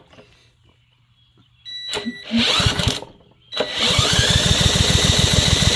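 Recoil starter on a Honda pressure washer's small engine pulled twice, the engine cranking over with a fast even pulse and a rising whine but not catching. The inline spark plug tester shows no spark, which the owner thinks may be a bad ignition coil.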